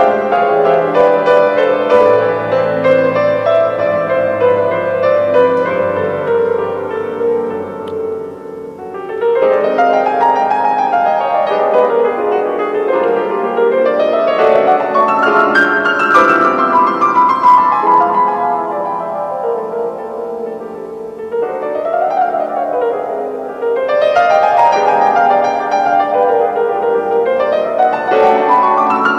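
Grand piano played solo: held chords over low bass notes at first, then, from about nine seconds in, a series of quick rising runs that repeat every few seconds.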